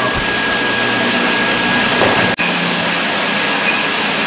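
Induction brazing machine running: a steady rushing noise with a constant high whine through it, broken by a split-second dropout a little over two seconds in.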